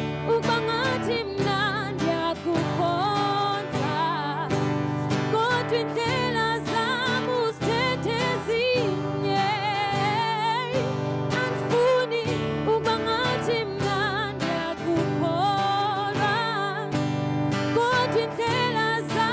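Solo singer performing live with a steel-string acoustic guitar. The voice holds and bends notes with a wavering vibrato over steady strumming.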